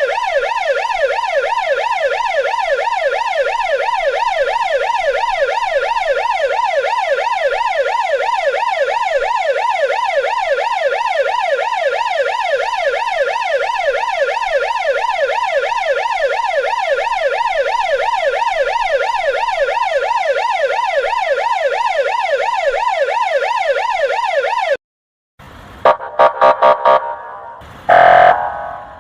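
Russian police car electronic siren sounding a rapid, repeating rising sweep that cuts off suddenly about 25 seconds in. After a brief silence come a few short, loud bursts.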